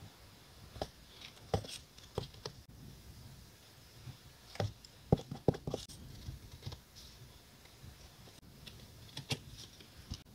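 Irregular light clicks and taps of small desk items being handled, with a quick cluster of sharper knocks about five seconds in.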